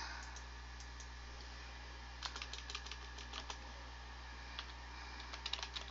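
Computer keyboard keys clicking in two short runs of typing, the first about two seconds in and the second near the end, over a steady low hum.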